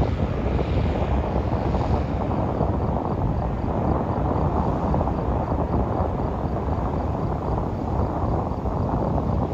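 Gulfstream business jet's twin turbofan engines at takeoff power, a steady rumbling jet noise as the jet climbs away after lift-off.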